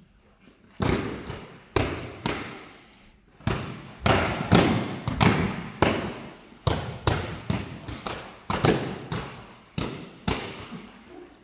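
Soft padded longswords striking each other and the fighters' padded armour: a rapid, irregular run of dull thuds and knocks, some in quick flurries, starting about a second in and thinning out near the end. Each hit echoes briefly in the large hall.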